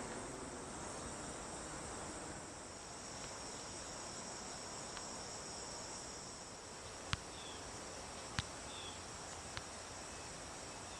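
A steady, high-pitched drone of insects, with three sharp clicks in the second half.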